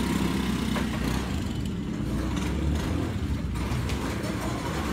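Small motor scooter engine running low and steady as the scooter pulls away, with a single sharp click about a second in.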